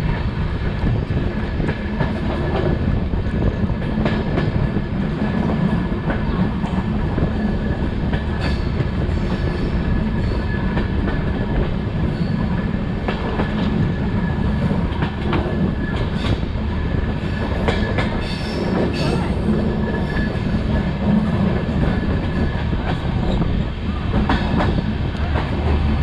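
A passenger train running at speed, heard from beside its coach: a steady rumble of the wheels on the track with scattered sharp clicks.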